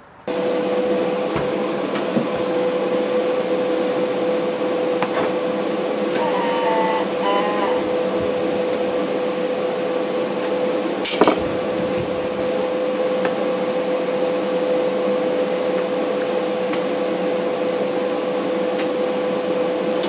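Steady hum of a running motor with one constant tone, and a single sharp click about eleven seconds in.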